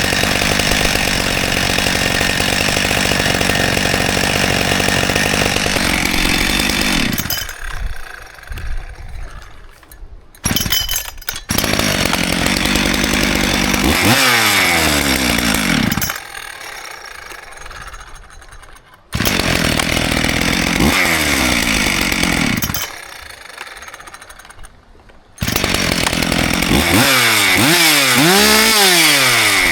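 Rebuilt Husqvarna two-stroke chainsaw, being run in and tuned, held at full throttle and let back down to idle three times, each time opening up again; its pitch sweeps down and up as the revs change.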